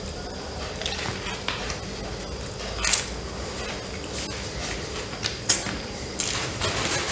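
Close-miked eating: a bite into a soft-bread ham and crab-surimi sandwich with salad, then chewing with wet mouth sounds and several sharp smacking clicks.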